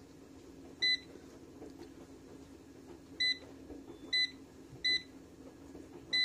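Air fryer's touch control panel beeping as its buttons are pressed to set the cooking timer: five short, high beeps at uneven intervals, over a faint low steady hum.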